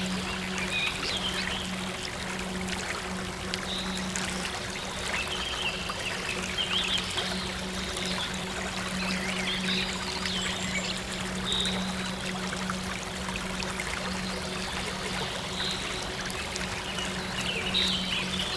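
Stream water trickling and flowing steadily, with short bird chirps every few seconds and a steady low synth drone underneath.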